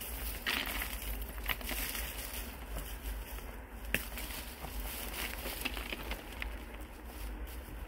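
Dry grass being pulled up by hand and pushed onto a pile, rustling and crackling in a quick irregular run of small snaps, with one sharper crack about four seconds in.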